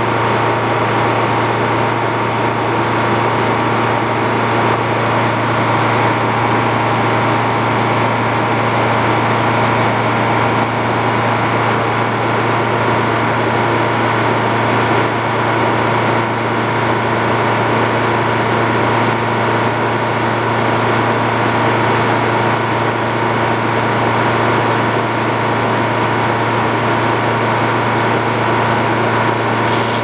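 Circular sawmill running with no log in the cut: the power unit and spinning blade give a steady, even drone with a strong low hum that does not change.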